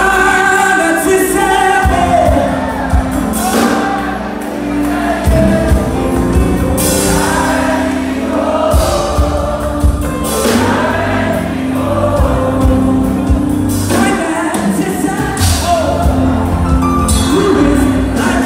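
Live gospel worship music: a lead singer with backing vocalists over a band of keyboard, bass and drums, played loud through the PA, with cymbal washes every few seconds.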